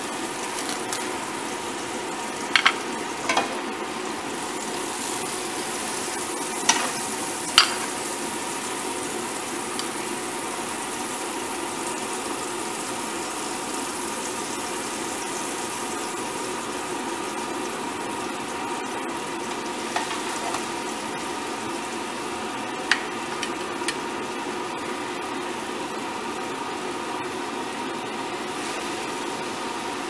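Steady hiss with a faint hum, broken by a few brief clicks and knocks: the glass baking dish and cling film being handled, most of them in the first eight seconds.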